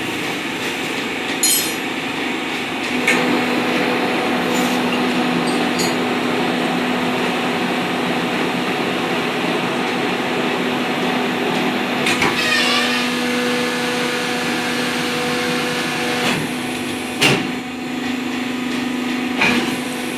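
Hydraulic power pack of a triple-action waste paper baling press (Jumbo model SH-999) running steadily, its hum settling onto a steady pitch about three seconds in. A few sharp metallic clanks come from the press along the way.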